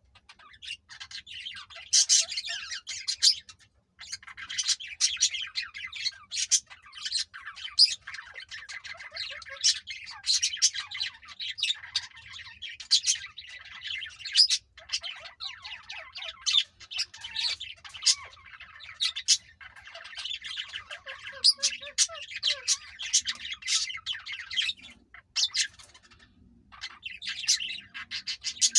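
Indian ringneck parakeets chattering: a dense run of rapid, high chirps broken by sharp squawks, with short lulls about four seconds in and near the end.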